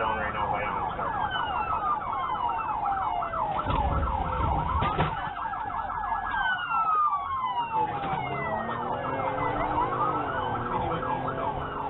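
Police sirens wailing together during a pursuit: one on a fast yelp that warbles several times a second, another sweeping slowly up and down over a few seconds.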